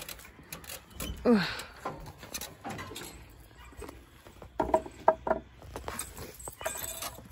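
Steel cattle chute clanking and rattling as its gates and latches are handled, with a cluster of short ringing knocks about five seconds in. About a second in there is a short falling groan.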